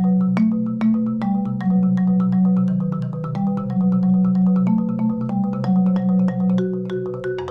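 Concert marimba played solo: a steady stream of quickly struck notes, about five a second, over low bass notes that ring on beneath them.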